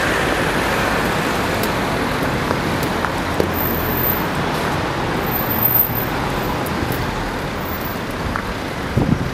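Steady city street traffic noise: a continuous wash of passing cars, with a few faint clicks.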